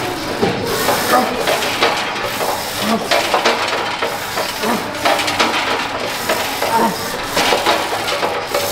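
A lifter's forceful breathing and short grunts, repeated with each rep, as he presses a plate-loaded Smith machine bar in a heavy set of seated shoulder presses.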